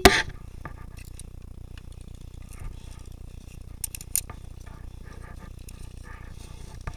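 Sharp clicks of airsoft guns firing, a loud one at the very start and two close together about four seconds in, over a steady low rumble with faint rattling of gear.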